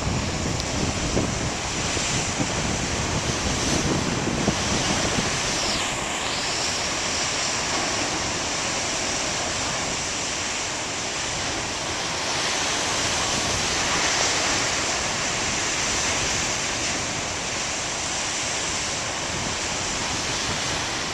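Ocean surf: waves breaking and washing ashore in a steady rush, with wind buffeting the microphone.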